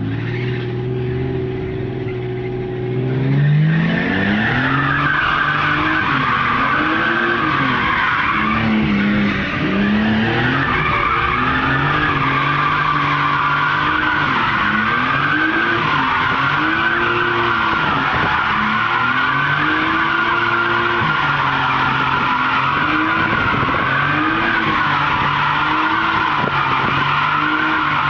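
Nissan Skyline R34 GT-R's twin-turbo straight-six drifting: the engine holds a steady note, then from about three seconds in revs up and down over and over while the tyres squeal without a break.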